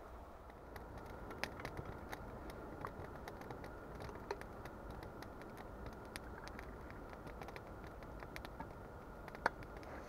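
Campfire crackling: a steady low hiss with frequent irregular sharp pops, one louder pop near the end.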